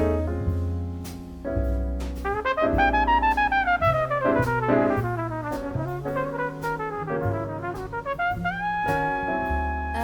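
Instrumental jazz: a brass lead, trumpet-like, plays melodic runs that climb and fall over a moving bass line, with no singing.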